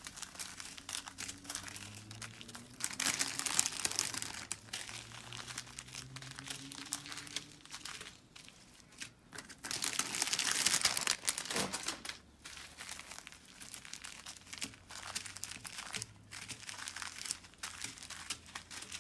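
Small zip-lock plastic bags of crystal diamond-painting drills being handled and laid out, the plastic crinkling and rustling in irregular bursts, loudest about three seconds in and again around ten seconds in.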